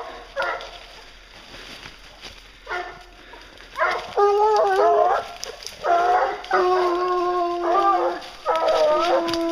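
Briquet scent hounds giving tongue on a wild boar's trail: a few short yelps at first, then from about four seconds in long, drawn-out howling calls from more than one dog overlapping.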